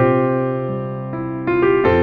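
Electric piano or keyboard music: slow, held chords with new notes struck every half second or so and left to ring.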